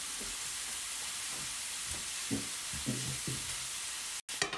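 Spoon stirring wet biscuit dough of biscuit mix and buttermilk in a plastic mixing bowl: a soft, continuous stirring sound over a steady hiss.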